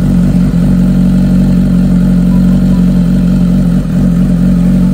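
BMW 1000 cc sportbike's inline-four engine running loud and steady through its exhaust, with no clear rise or fall in pitch.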